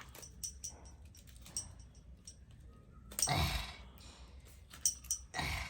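Close-up eating sounds: soft wet mouth clicks while chewing, with two short breathy puffs, one about three seconds in and one near the end.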